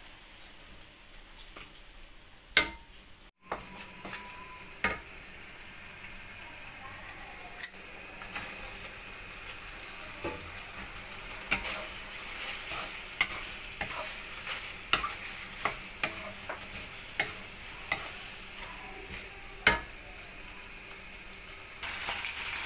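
Bacon and cream sauce sizzling in a nonstick wok while a wooden spatula stirs and tosses penne through it, with frequent sharp knocks of the spatula against the pan. The sizzle grows louder in the second half.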